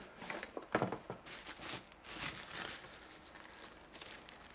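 Packaging rustling and crinkling in the hands as the DJI RC-N1 controller is unpacked, with a few sharp clicks in the first second.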